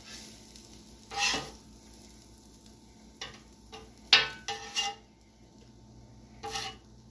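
Slotted metal spatula scraping and clacking on the steel plate of a flat-top griddle as it scoops peppers and onions, several short strokes with the loudest about four seconds in, over a faint sizzle.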